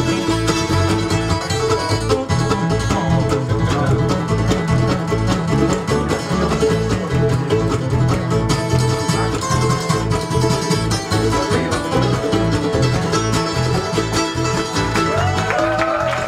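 Live bluegrass band playing at a steady driving tempo, with banjo and acoustic guitar to the fore over mandolin, fiddle and bass guitar.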